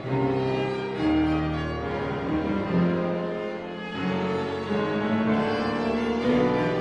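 A piano quintet (piano, two violins, viola and cello) playing chamber music. The bowed strings hold notes that change about once a second.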